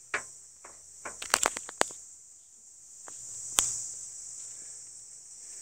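Steady high-pitched chirring of crickets or similar insects, with a few sharp clicks and knocks: one just after the start, a quick run of them about a second and a half in, and one more past the middle.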